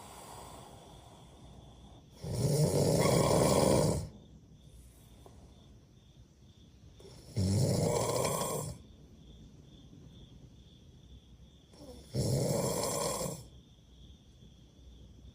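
A person snoring loudly: three long snores about five seconds apart, each lasting about a second and a half, with quieter breathing between them.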